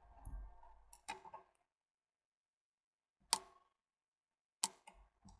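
Handling noise and small metal clicks as coaxial cables and SMA attenuators are handled and unscrewed, with a few sharp clicks in the second half.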